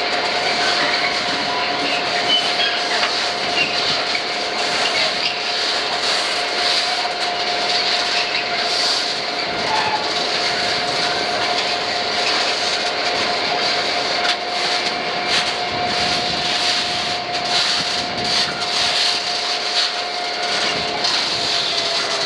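Long freight train of hopper wagons rolling steadily past on the rails, a continuous rumbling noise with a steady whining tone that slides slightly lower near the end.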